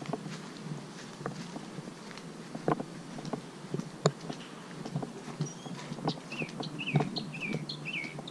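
Footsteps on grass and dirt: a string of irregular soft knocks. From about halfway through, a bird calls in a quick series of short chirps that slide downward, two or three a second.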